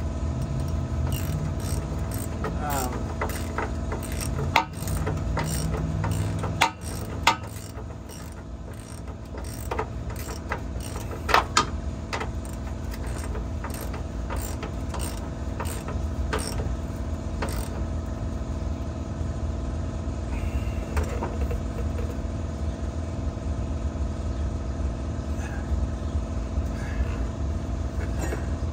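Hand socket ratchet wrench clicking in irregular runs as a bolt is worked under a truck, with a few sharp metal clacks; the clicking thins out after about eighteen seconds. A steady hum with several held tones runs underneath.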